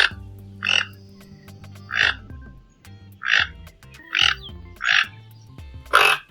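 Keel-billed (rainbow) toucan giving a series of short, frog-like croaking calls, about seven in all at irregular intervals of roughly a second.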